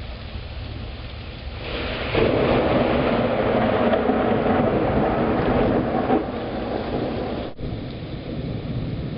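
Thunder rumbling during a rainstorm, over a steady hiss of rain. The rumble swells about two seconds in and eases off a few seconds later.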